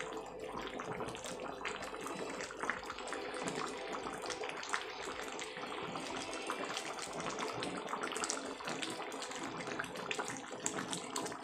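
Thin curry simmering and bubbling in a pan on a gas stove, stirred with a wooden spatula that clicks and scrapes against the pan. The sound is a steady wet bubbling with many small clicks.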